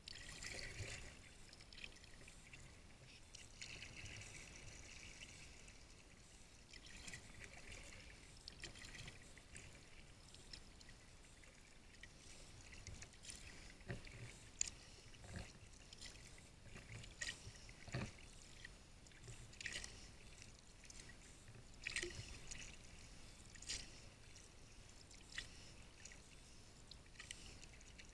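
Faint paddle strokes of a sea kayak on calm water: blades dipping in and water pouring and dripping off them, with small splashes at uneven intervals every second or two.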